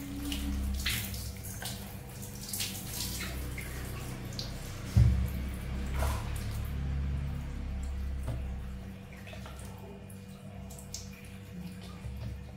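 Water splashing and dripping in a small tub as a baby monkey is bathed, with a single loud low thump about five seconds in.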